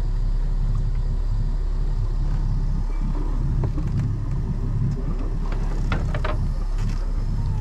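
Motorboat engine running with a steady low rumble while the boat is underway at slow trolling speed.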